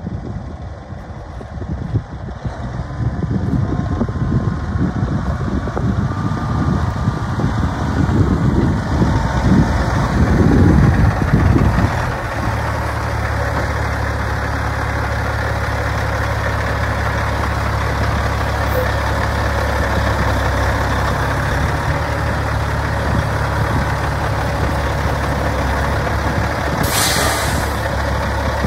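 2006 Kenworth T600 truck tractor's diesel engine pulling closer and growing louder, then settling into a steady idle about twelve seconds in. A short hiss of air sounds near the end.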